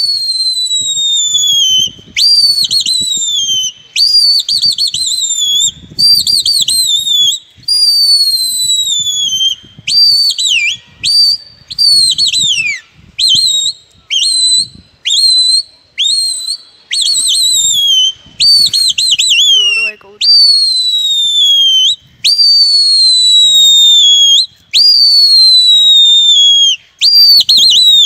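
Loud, shrill human whistling from a pigeon flyer calling to his flock in the air: a long run of whistles, each a second or two, most sliding down in pitch and some broken into quick warbles.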